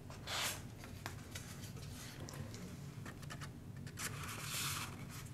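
Paper tags being handled: a short paper rustle about half a second in, a few faint ticks, and a longer paper swish near the end.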